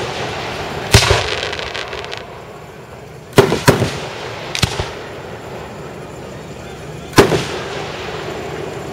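Aerial fireworks shells bursting with loud, sharp booms that echo. The first, about a second in, trails off into about a second of crackling; two more go off in quick succession about three and a half seconds in, followed by a fainter pair a second later and one last boom near the end.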